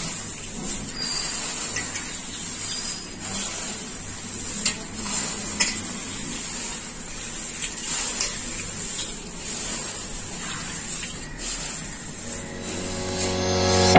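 Hands tossing dry thin poha chivda in a steel bowl: a steady crisp rustle of flakes with a few sharp clicks. Music fades in near the end.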